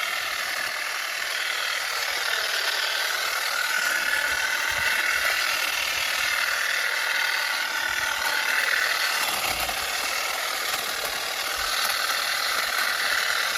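Battery-powered 60 V hedge trimmer running steadily, its electric motor and reciprocating blades making a continuous high mechanical whir.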